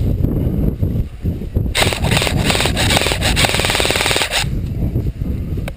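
Airsoft rifle firing one fully automatic burst of rapid shots lasting about two and a half seconds, starting about two seconds in, over a low rumble.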